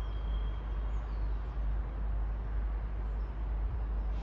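Steady low rumble and hiss of outdoor background noise, with a few faint, short, high bird chirps.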